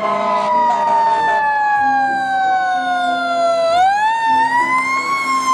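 Toy rescue truck's electronic siren wailing: a single siren tone that falls slowly in pitch for almost four seconds, rises again, then starts to fall once more.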